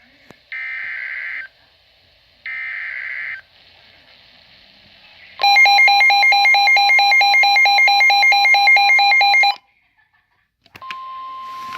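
NOAA Weather Radio alert coming in: two one-second buzzy bursts of SAME digital header data, then about four seconds of a loud pulsing electronic alert tone. After a short gap, about a second before the end, the steady single-pitch warning alarm tone starts.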